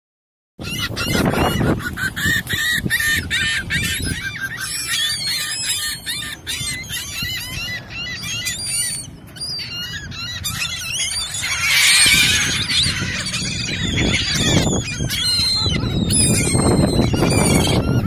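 A flock of gulls calling, many rapid squawking calls overlapping, densest in the first half.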